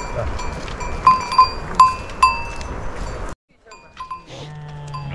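Metal livestock bells on a flock of sheep clanking and ringing, with about four louder strikes in the first half over a windy hiss. The sound cuts off abruptly, and after a quieter stretch a sheep bleats near the end.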